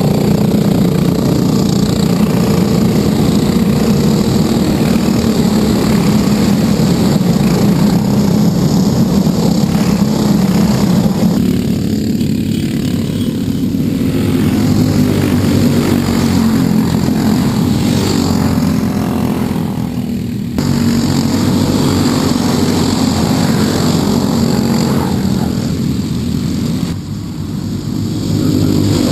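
Racing karts' engines running at high revs as a pack of karts laps the circuit, their pitch rising and falling as they accelerate and pass. The sound changes abruptly a couple of times, about two-thirds of the way in and near the end.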